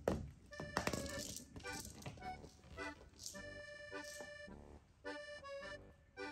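Background music: a melody of short pitched notes, with sharp clicks and a rattle in the first second.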